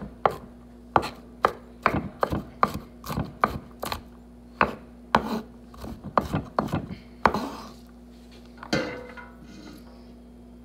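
Kitchen knife chopping garlic cloves on a wooden cutting board: sharp, uneven knocks about two a second that stop about seven seconds in, followed by a brief scrape near the end.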